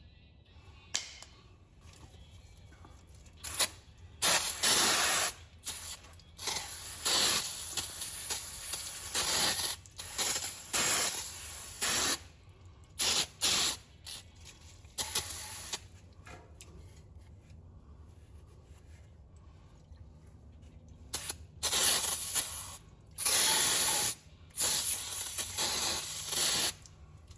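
Pressurised spray hissing in repeated short bursts, some brief and some about two seconds long, with a pause of several seconds in the middle.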